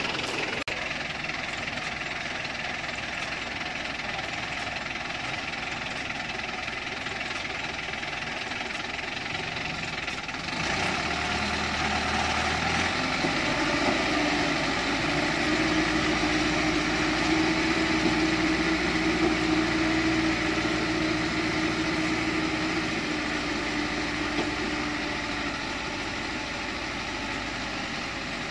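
Diesel engine of a loaded Chiến Thắng light truck running, with a knocking clatter. About ten seconds in it gets louder and holds a steady pitch as it pulls the truck forward through deep mud.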